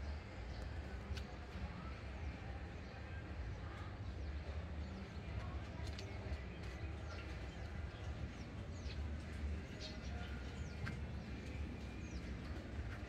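Small birds calling outdoors: short, high chirps that fall in pitch, repeated about once a second through the second half, over a steady low rumble.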